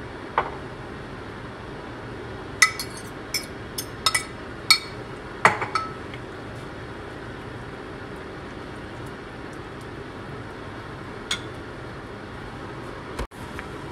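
A metal fork clinking and tapping against a ceramic baking dish in a quick run of sharp clinks over the first six seconds, with a single clink at about eleven seconds and another near the end.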